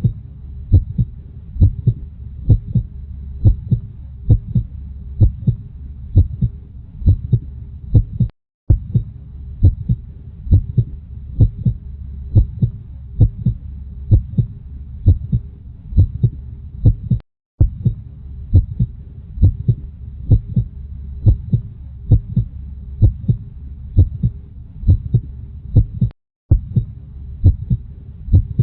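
Heartbeat: a steady rhythm of low, deep thumps, several to the second, with a faint hum beneath. About every nine seconds it breaks off for a split-second silence, like the seam of a repeating loop.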